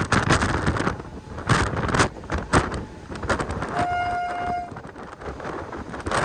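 Train horn sounding one short, steady blast of a bit under a second, midway through, over the knocking and rattling of a train running on the track. The clatter is louder in the first half.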